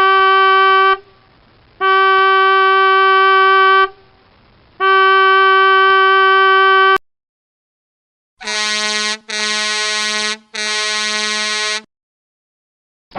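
Ship horns: one horn sounds three long blasts, the last cut off sharply about seven seconds in; after a short silence a lower-pitched horn sounds three shorter blasts.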